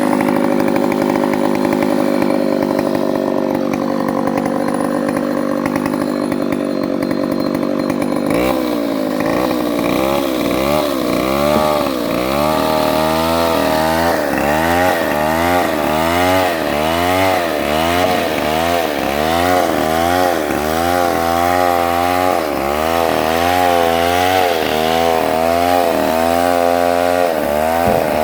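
Chainsaw running at high revs while milling a Bonsum log lengthwise. About eight seconds in, its engine note starts rising and falling about once a second and keeps doing so.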